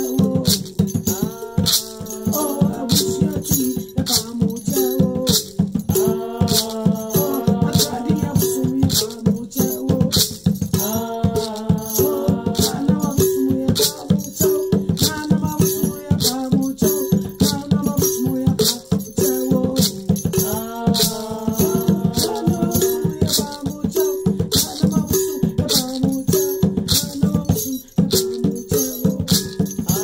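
A voice singing a chant over a hand rattle shaken in a steady, even beat.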